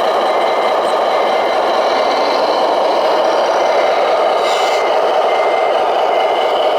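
RC model construction vehicle running steadily, its reversing beeper giving short high beeps a little under once a second, with a pause of about two seconds in the middle.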